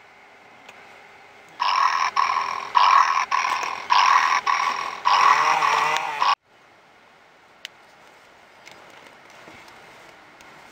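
Electronic cat noises from a FurReal Friends kitten toy: a choppy run of calls starting about one and a half seconds in, ending in a meow-like call, then cutting off abruptly.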